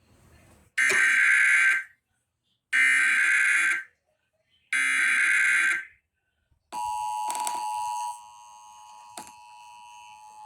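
Emergency Alert System broadcast alert: three one-second bursts of the SAME digital header data, a raspy warbling screech, with a second of silence between each. About seven seconds in, the steady two-tone EAS attention signal begins. It drops in level about a second and a half later and keeps sounding. This is the start of a Required Monthly Test.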